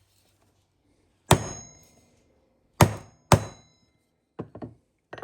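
Hammer blows on a 5/32 pin punch, driving the roll pin out of a garage door opener's drive gear: three sharp metallic strikes with a brief ring, the last two close together, then a few lighter taps near the end.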